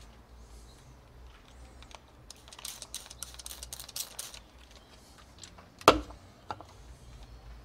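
Small objects being handled on a counter: a run of quick clicks and rustles, then a single sharp knock about six seconds in, over a faint low hum.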